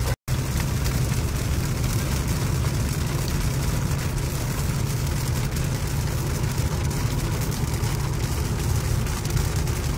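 Steady cabin noise of a Toyota car driving on a wet road in rain: a strong low road-and-engine rumble under a constant hiss of tyres on water and rain on the glass. The sound drops out for an instant just after the start.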